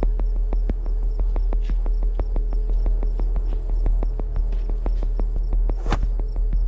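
Steady high insect-like chirring with an even, rapid ticking of about six ticks a second over a low hum. A single sharp whoosh comes near the end.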